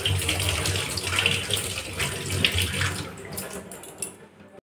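Kitchen tap running into a steel sink while a green papaya is rinsed under the stream; the flow stops near the end, leaving a few light clicks.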